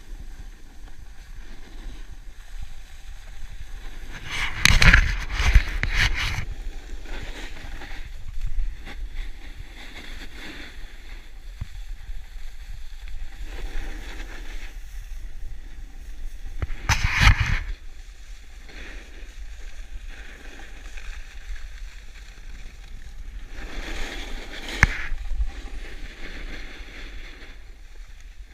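A rider sliding down a groomed slope, with the steady rush of snow under the rider and wind buffeting the microphone. Three louder scraping rushes stand out, about five seconds in, around seventeen seconds, and near the end.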